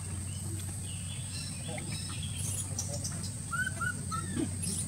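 Birds chirping faintly, with three short chirps close together about three and a half seconds in, over a steady low hum and a thin high whine.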